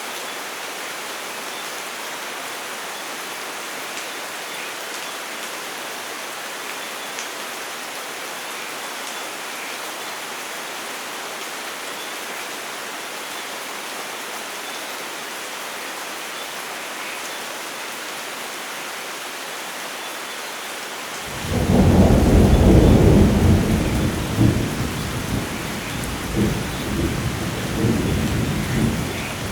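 Steady heavy rain hissing, then about 21 seconds in a loud clap of thunder breaks in suddenly and rumbles on in rolling surges to the end.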